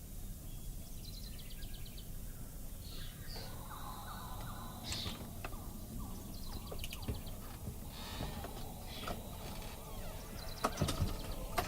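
Unidentified animal calls outdoors: short trains of rapid clicking trills and brief chirps over a steady low rumble, with a few sharper clicks near the end.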